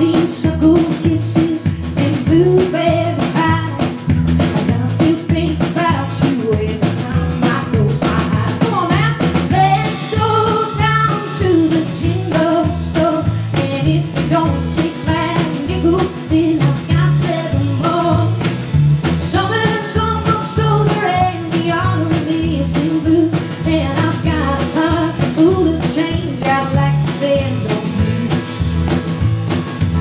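Live band playing a rock-and-roll song: a woman singing lead over strummed acoustic guitar, electric guitar and a drum kit keeping a steady beat.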